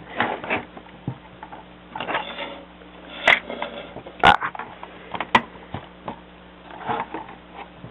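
Hard plastic LEGO pieces of a Slave I model clicking and clacking as hands swing its hinged side panel open, with several sharp clicks and soft rubbing in between.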